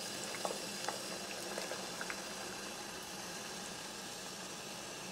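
Pot of water at a rolling boil, bubbling steadily, with a head of cabbage pressed down into it to soften its leaves. A few faint light clicks come in the first couple of seconds.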